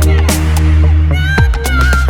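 Background music: an electronic track with a heavy bass line and a steady drum beat.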